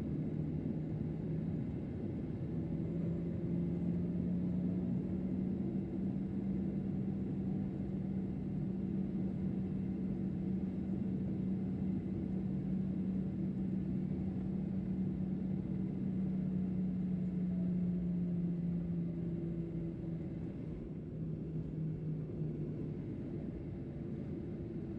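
Cabin noise inside a Boeing 737-800: a steady low rumble with a droning engine hum that rises slightly in pitch about two seconds in and eases back down near the end.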